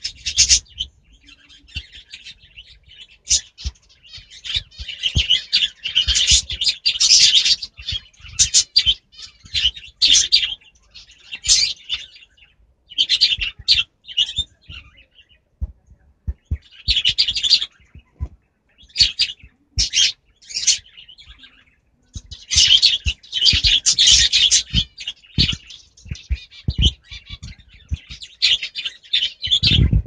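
Small pet parrots, a budgerigar and a lovebird, chirping and chattering in bursts of a few seconds with short pauses between them.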